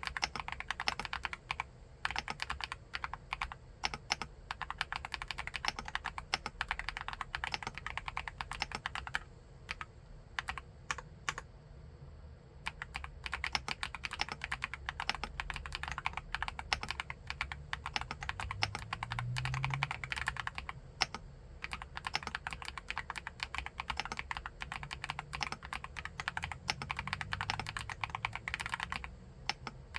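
Akko SPR 75 mechanical keyboard with MMD Princess tactile switches being typed on quickly, a dense run of keystrokes that thins to a few slower presses about ten seconds in before picking up again.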